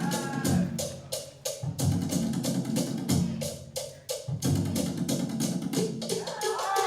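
Music with a quick, steady percussive beat of about four hits a second over a heavy bass line.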